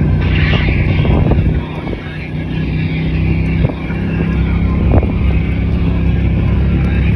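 Ford's engine running, easing off about two seconds in and building back up, with a sharp knock about five seconds in.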